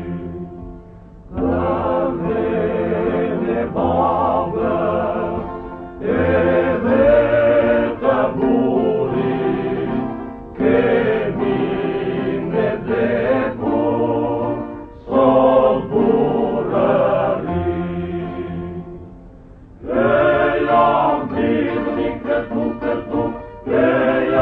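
Choir singing a song in phrases of a few seconds each, with brief pauses between them.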